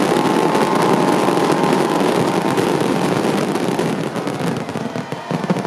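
Aerial fireworks barrage: a dense, continuous run of shell bursts and crackling that thins out toward the end, with a few last bangs near the end.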